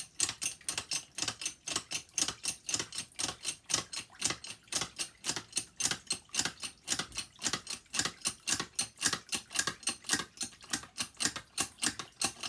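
An old drill turning a jack to compress a wet sawdust-and-coffee-grounds briquette mould, giving a steady run of sharp clicks, about five a second.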